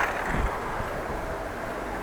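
Steady road and wind noise while riding a bicycle, with wind on the microphone.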